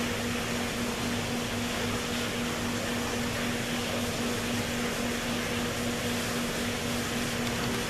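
Steady hum and hiss of a ventilation fan, with one constant low tone and a fainter tone above it, unchanging throughout.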